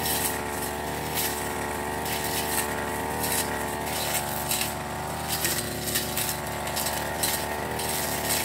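Brush cutter engine running steadily at cutting speed as it clears undergrowth, its pitch dipping slightly about four seconds in, with frequent short sharp clicks.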